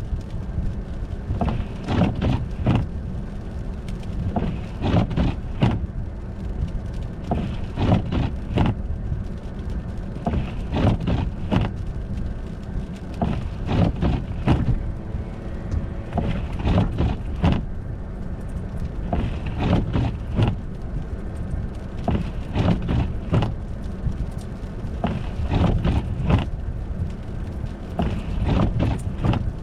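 Car driving on an icy road: a steady low rumble, with irregular knocks and crunches throughout.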